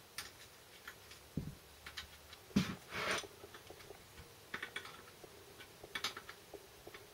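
Light metal clicks and taps of a spanner on a bolt and small steel brackets being handled on a gearbox casing, in irregular little clusters, with one louder knock a little over two seconds in and a brief rustle just after.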